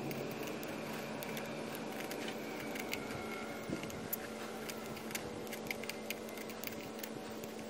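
Metal scribe scratching letters into the painted steel canister of an oil filter: a run of short scratches and ticks, densest from about three seconds in, over a steady low hum.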